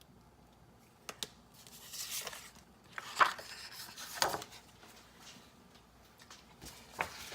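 A few sharp clicks followed by short rustling and scraping handling noises, spaced out over several seconds in a quiet room.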